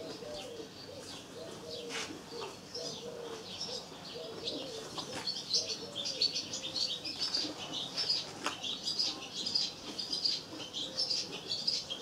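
Barn swallows twittering at the nest: rapid high chirps that grow busier about halfway through. A low wavering note runs underneath in the first half, and a few short sharp sounds break in.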